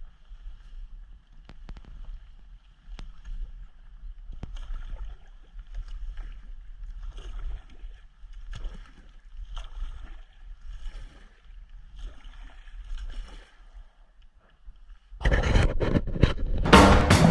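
Kayak paddle strokes in water, a regular run of splashes about one every half second to second, over a steady low rumble. About fifteen seconds in, loud music with drums starts and becomes the loudest sound.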